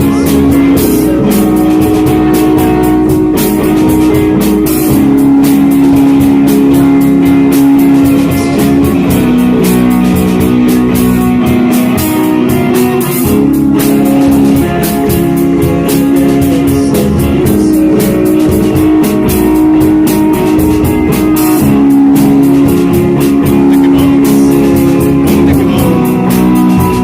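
Shoegaze rock band playing live: sustained, layered electric guitar chords shifting every few seconds over bass and a drum kit with steady cymbal hits.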